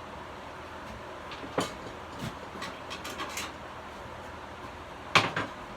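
Engine parts and hand tools being handled during disassembly: scattered clicks and clinks over a steady hiss, a sharp knock about a second and a half in, and the loudest clank near the end.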